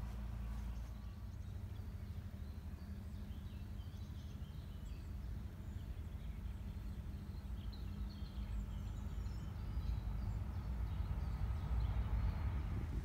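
Outdoor garden ambience: a steady low rumble, with faint scattered bird chirps high above it.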